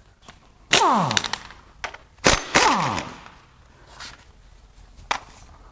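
Impact wrench run in two short bursts, each winding down in pitch after the trigger is let go, spinning off the nut on the fuel injection pump gear of a 5.9L Cummins diesel. A few sharp metal clicks come between.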